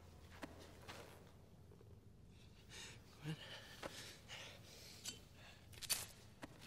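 A man's shaky breathing and short gasps over faint room tone, with a few small clicks.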